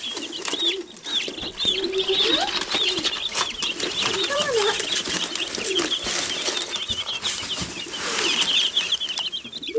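Wyandotte bantam chicks peeping constantly in quick, high-pitched chirps, with lower gliding bird calls now and then and scratchy rustling.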